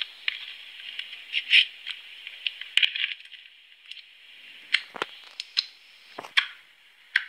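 Clear slime being squeezed and poked by fingers, giving a run of sharp clicks and pops, with a crackly hiss in the first few seconds and a couple of deeper pops in the second half.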